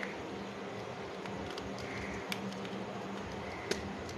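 Small sharp clicks of a screwdriver and wire ends against a plastic switchboard's brass screw terminals: one about two seconds in and a louder one near the end. A steady hum runs beneath them.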